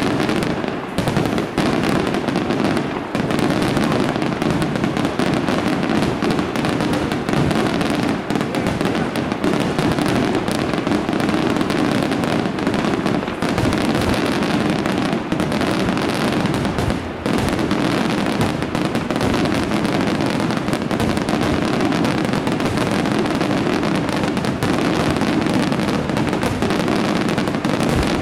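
Aerial fireworks shells bursting in a continuous barrage, a dense, unbroken din of bangs and crackles with only a few brief dips in loudness.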